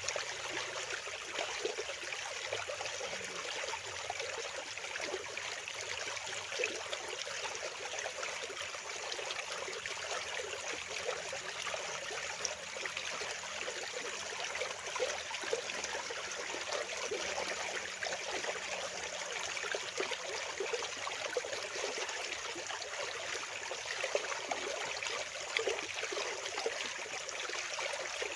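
Fast-flowing water rushing and babbling steadily, a continuous splashing hiss with no break.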